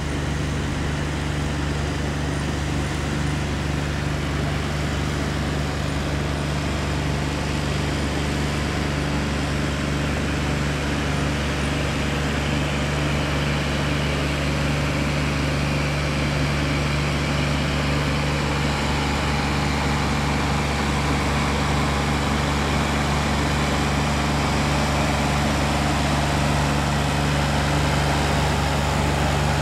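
An engine running at a steady drone, with a constant low hum under a background hiss that grows slightly louder in the second half.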